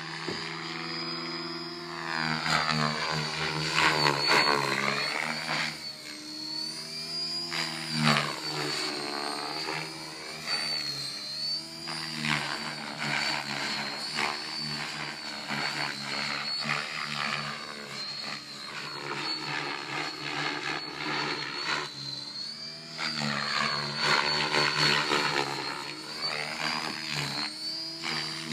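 Radio-controlled aerobatic model airplane flying: the motor and propeller buzz steadily, the pitch gliding up and down again and again, with louder swells as the plane comes closer.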